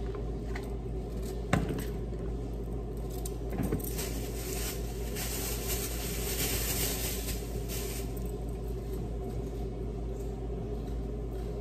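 Kitchen handling sounds from hands working in a mixing bowl: a couple of sharp knocks, then a plastic bag rustling for a few seconds in the middle, over a steady low hum.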